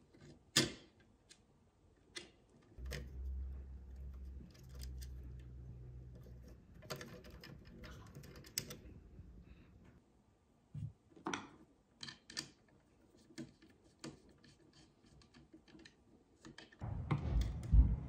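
Small clicks and taps of a screwdriver and stiff copper wires on the plastic body and terminal screws of an electrical outlet being wired, some in quick clusters. A louder low rumble starts near the end.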